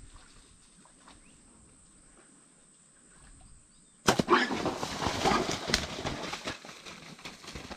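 A compound bow shot: a sudden sharp crack about four seconds in, after a quiet lull. It is followed by about three seconds of loud crashing and rustling through dense vegetation that fades out.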